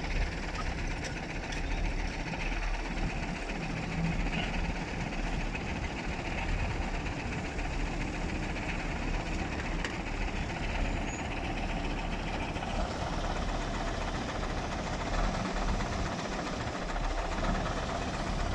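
Heavy diesel engines of earthmoving machines, a wheel loader and an excavator, running steadily with a low hum.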